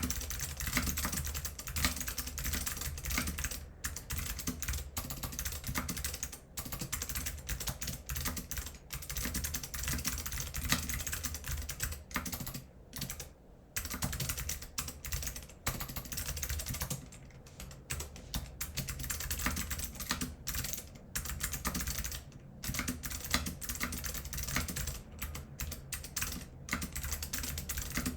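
Continuous fast typing on a mechanical keyboard with unlubricated Alps SKCM Blue clicky switches, a stainless steel plate and PBT keycaps: dense clacks and clicks, with a few short pauses.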